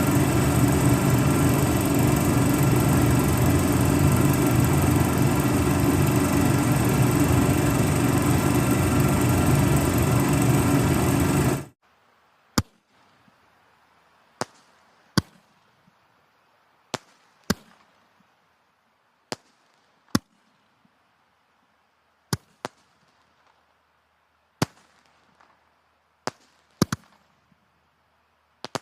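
A loud, steady engine running, which cuts off abruptly about twelve seconds in. It is followed by about a dozen sharp, single cracks at irregular intervals, each with a short fading tail.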